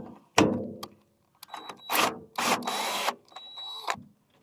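Power drill fitted with a socket, running in several short bursts to spin a nut off a wheelbarrow handle bolt, with a high whine in some of the bursts.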